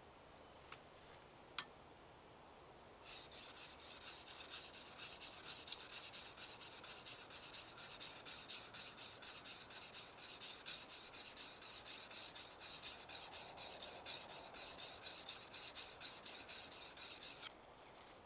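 Fast, even back-and-forth rasping strokes of a hand tool working on wood or metal, about four strokes a second. They start about three seconds in and stop abruptly near the end, after two light clicks.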